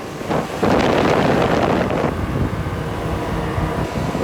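Wind rushing over the microphone from a moving open golf buggy, over the low rumble of the ride. The wind is loudest from just after the start to about two seconds in, then eases to a steadier rush.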